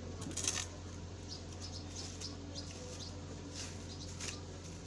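Wet clicks and smacks of a mouth eating fufu: a quick cluster about half a second in, then single clicks every second or so. A steady low hum runs underneath.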